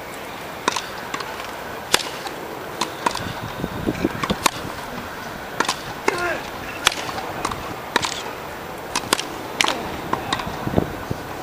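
Tennis balls struck with rackets during a groundstroke rally on a grass court: sharp pops about once a second, with murmured spectator chatter underneath.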